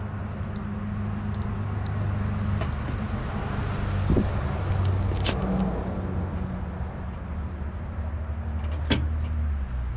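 An engine running with a steady low hum that slowly grows louder, and a couple of sharp clicks over it.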